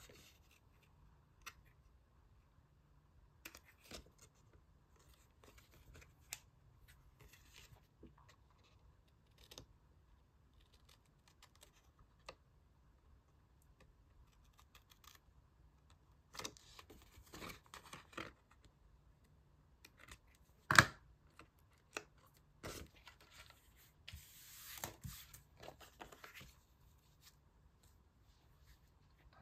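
Scissors snipping through magazine paper, with scattered small paper-handling sounds and one sharper click about two-thirds of the way in, while pictures are cut out for a collage.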